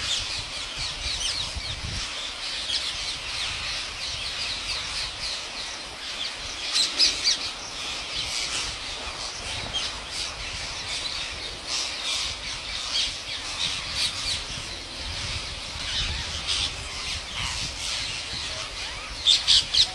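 A large flock of rose-ringed parakeets squawking together in a dense, unbroken chorus of shrill calls, with louder bursts of calls about seven seconds in and again near the end.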